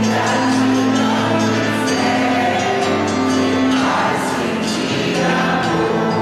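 Background music: a choir singing a hymn over sustained instrumental accompaniment.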